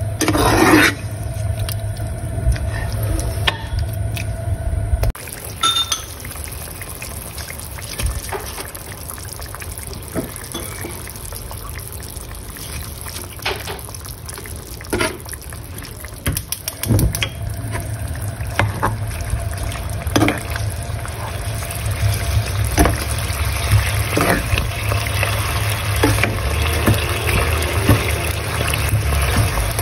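Chicken braising in sauce in a cast-iron pot: the liquid simmering while a metal spoon stirs it, clinking against the pot now and then. A steady low hum sounds for the first few seconds, drops out, and comes back a little past halfway.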